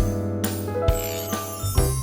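Background music: a bright, tinkling tune with bell-like notes over a steady beat.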